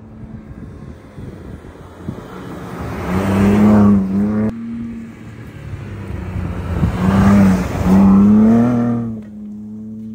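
Ford Bronco Raptor's 3.0-litre twin-turbo V6 accelerating at full throttle, its exhaust rising in pitch and swelling as it speeds up. It is loudest about three to four and a half seconds in, where it breaks off abruptly, and again about seven to nine seconds in as it passes close, then fades as it pulls away.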